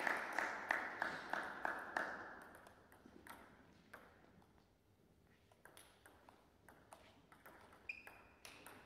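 Table tennis ball clicking in a sports hall: a run of evenly spaced bounces that dies away over the first two seconds, then a serve and rally of sharp hits on bats and table. Short rubber-sole squeaks on the hall floor near the end.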